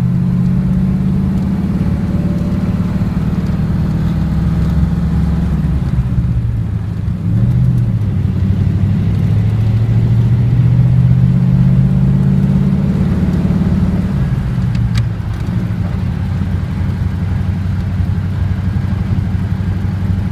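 Old car's engine running as it is driven. Its pitch rises through the middle and drops back a couple of seconds later, with a single sharp click about 15 seconds in.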